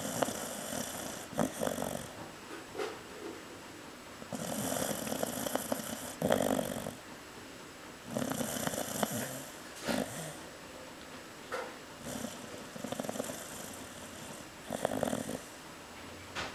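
Chow chow dog snoring lightly in sleep: about five noisy snoring breaths a few seconds apart.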